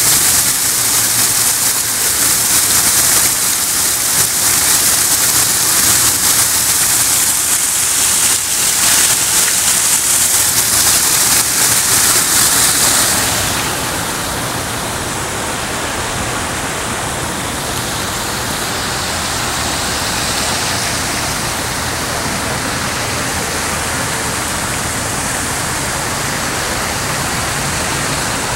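Artificial rock waterfall pouring and splashing into a swimming pool: a loud, steady rushing hiss. About 13 seconds in it drops in level and becomes duller, losing its bright top.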